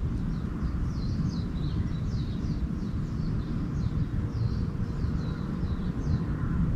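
Small birds chirping busily, a rapid run of short high notes that slide downward, over a steady low rumble of outdoor background noise.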